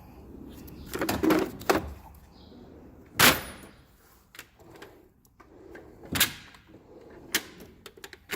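Tools and metal toolbox drawers being handled: several sharp clacks and knocks, a cluster about a second in, the loudest about three seconds in, and two more near the end.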